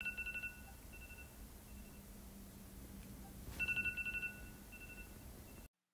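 Electronic wake-up alarm beeping: a quick run of high beeps at the start and again about three and a half seconds in, each followed by fainter repeats, over a faint low hum. It stops abruptly near the end.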